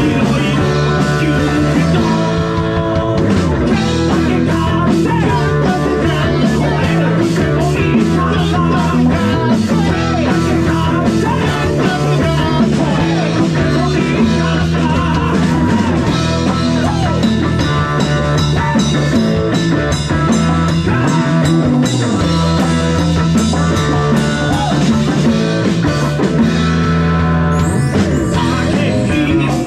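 Rock band playing live, with electric guitar and drum kit.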